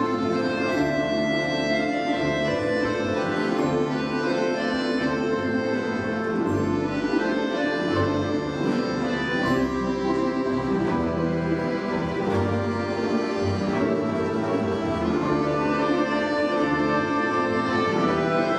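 Russian folk-instrument orchestra playing: domras and balalaikas plucked and strummed over long held chords and a moving bass line.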